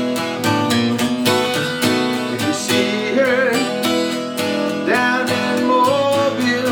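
Acoustic guitar strumming in a steady rhythm in a blues song, with a melody line above it that bends and wavers in pitch about halfway through and again near the end.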